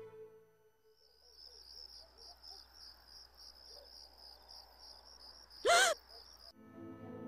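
Crickets chirping in a steady pulsing rhythm, about three chirps a second, over a faint low hum. About five and a half seconds in, a woman gives a short, loud, high-pitched cry, like a startled scream, and the crickets then cut off.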